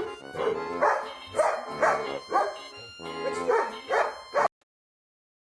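A dog barking repeatedly, about two short barks a second, over background music; everything cuts off about four and a half seconds in.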